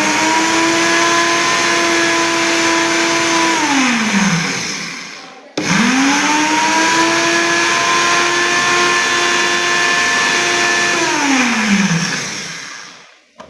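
Electric grinder grinding dried papaya seeds into powder, running in two bursts. The motor whines at speed, winds down with falling pitch about four seconds in, and starts again about a second later. It runs steady, then winds down and stops near the end.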